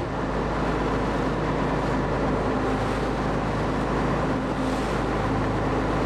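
Small fishing boat's engine running steadily underway: a low, even drone under a constant hiss of wind and water.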